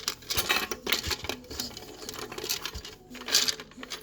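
Rapid, irregular clicking and rustling of Romex wires being tucked into a recessed light's plastic junction box, with a few light knocks.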